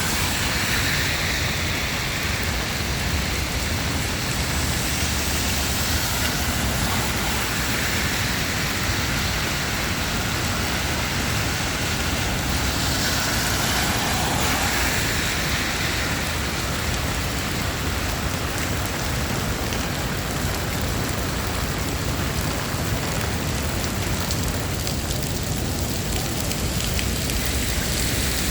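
Steady rain falling on a city street, with the hiss of traffic on wet roads swelling and fading a few times.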